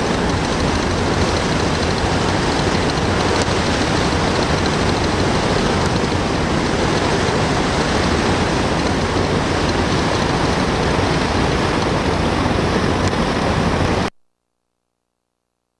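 Steady loud rushing of wind and water aboard the Staten Island Ferry, with a low rumble underneath, cutting off suddenly about fourteen seconds in.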